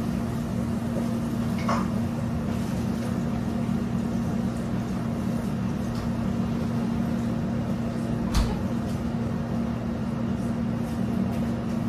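Steady mechanical hum of commercial kitchen equipment, with one sharp knock about eight seconds in.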